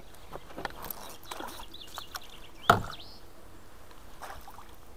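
A hooked fish splashing at the surface beside a canoe as it is played on the line, with light knocks on the boat and one loud thump about two and a half seconds in.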